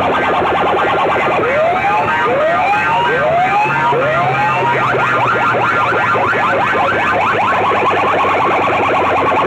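Siren-style sound effects blasted through a bank of horn loudspeakers on a competition sound set: a loud, rapid pulsing buzz, with four rising whoops one after another starting about a second and a half in.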